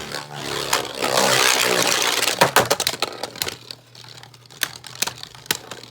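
Two Beyblade spinning tops, a 3D-printed Agèma Ares and a Savior Valkyrie, spinning and clashing in a plastic stadium. A dense rattling scrape fills the first couple of seconds, then gives way to a run of sharp plastic clicks and taps that grow quieter toward the end.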